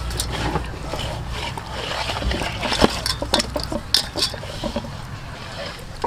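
Wet squelching and smacking of hands rubbing marinade into a raw whole chicken in a stainless steel bowl, with a series of short sharp clicks and slaps, most of them in the second half.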